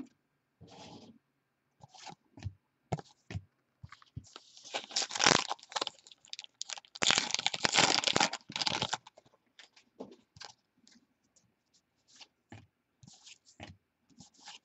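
Trading cards and their packaging being handled. There is a run of small clicks and slides, with two longer stretches of crinkling and rustling about four and seven seconds in.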